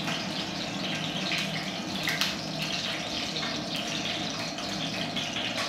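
Steady rushing kitchen background noise with a low hum underneath and a couple of faint clinks.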